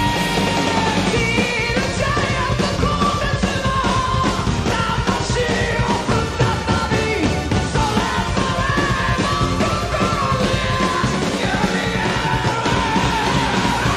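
Live rock band playing, with electric bass, drums and cymbals under a male lead vocal. A high sung note is held for about the first second, then the voice moves on in phrases that bend up and down.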